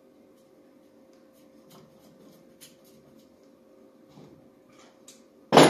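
Faint small clicks and ticks of hands handling engine parts and wires on a workbench, over a steady faint hum. Near the end comes one loud sudden clank, like a metal tool knocked or set down on the bench.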